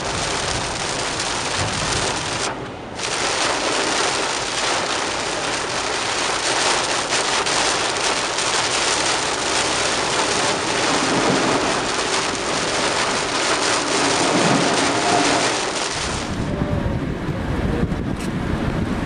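Heavy rain pelting the roof and windshield of a moving car, heard from inside the cabin as a loud steady hiss, dropping away for a moment about two and a half seconds in. Near the end it gives way to a low rumble of wind on the microphone.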